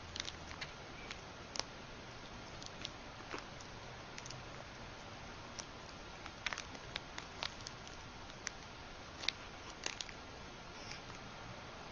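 A kitten batting at a dangling metal ball chain: scattered light clicks and taps at an irregular pace, over a steady faint hiss.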